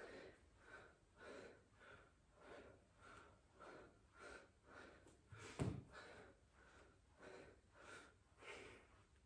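A man breathing hard and rhythmically through flutter kicks, short quick puffs of breath about twice a second, with one louder, sharper puff a little past halfway.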